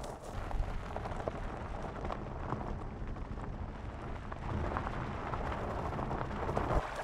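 Mercedes-Benz GLE SUV creeping over a loose gravel track: tyres crunching and crackling on small stones over a low, steady rumble.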